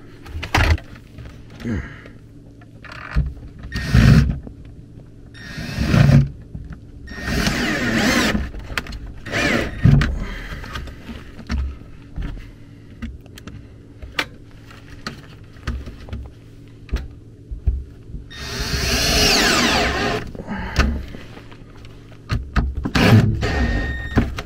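Knocks and clatter of tools and a plastic control board being handled, with a cordless drill/driver running in short bursts, the longest about three-quarters of the way through, its motor speed rising and falling.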